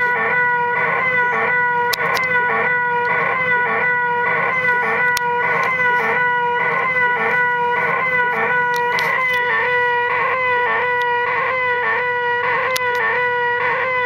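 A child's loud, sustained nasal whine held on one pitch, pulsing about twice a second: a deliberately made "most annoying sound in the world".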